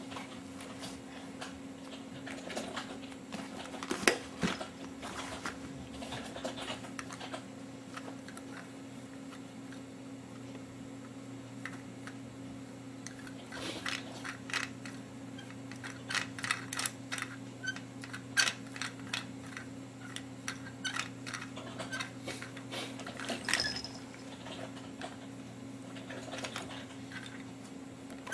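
Scattered clicks, taps and light rattles of small toys being handled, in clusters, over a steady low electrical hum.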